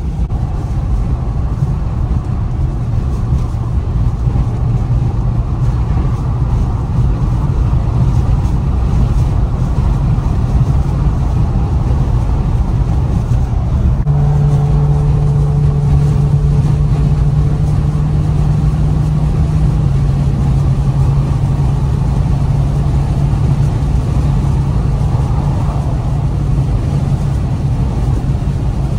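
Infiniti Q50 3.0t's twin-turbo V6 and tyre and road noise heard from inside the cabin at highway speed, around 95 mph, as a steady low drone. About halfway through the engine note steps up higher, then settles slightly lower a few seconds later.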